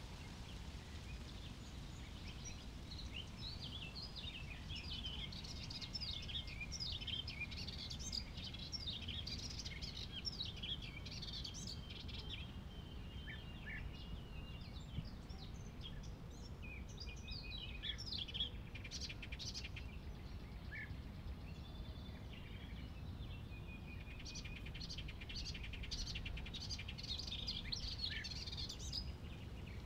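Songbirds singing in the background: quick runs of high chirps and short sliding whistles, busiest in the first half and again near the end, over a low steady background hum.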